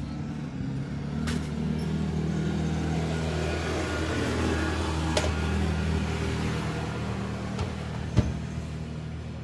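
Whirlpool top-load washing machine running its diagnostic test cycle: a steady low motor hum that swells in the middle and eases off near the end. Three sharp clicks come about one, five and eight seconds in, and the one near the end is the loudest.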